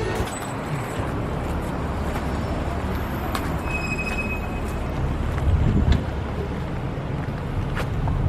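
Outdoor city traffic noise: a steady rumble and hiss of road vehicles, with one growing louder just before six seconds in.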